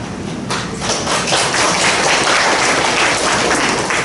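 Audience applauding, starting about half a second in and stopping near the end.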